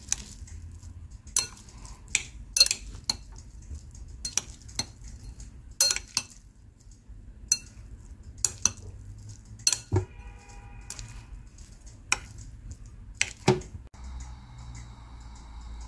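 Wooden chopsticks knocking and clicking against a ceramic bowl while tossing instant noodles with their seasoning: sharp, irregular knocks, about one or two a second. Near the end the knocks stop and a steady low hum takes over.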